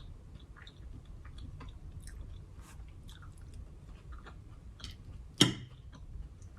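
Close-miked chewing: small wet mouth clicks and smacks of someone eating, with one sudden louder sound about five and a half seconds in.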